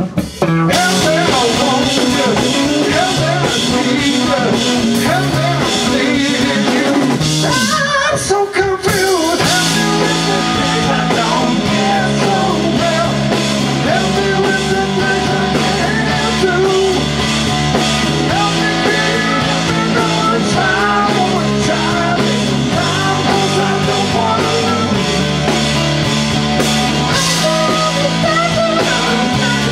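Live rock band playing: electric guitar, drum kit and bass, with a male voice singing. The music breaks off briefly about eight seconds in, then comes back with a bass line stepping through low notes under the band.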